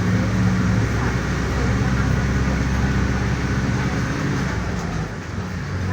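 Mercedes-Benz OF-1418 bus diesel engine running steadily as the bus drives along, with road noise. The low engine note drops away about five seconds in.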